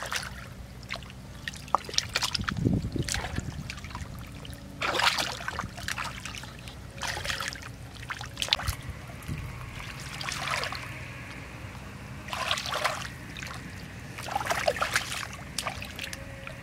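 Hands scooping and groping through wet mud and shallow muddy water, giving irregular squelches, sloshes and small splashes every second or two.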